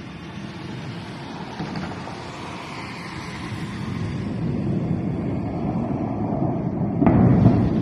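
A low rumbling roar grows steadily louder for several seconds. About seven seconds in, a sudden loud explosion blast hits, with a heavy low rumble that runs on.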